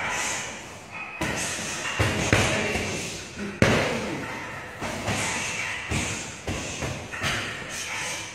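Heavy punching bag being struck with kicks or punches: a run of irregular thuds, about one or two a second.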